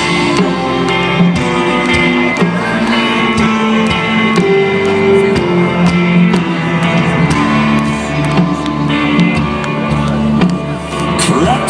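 Live folk-rock band playing an instrumental passage: strummed guitars over bass, with a steady beat of regular strokes.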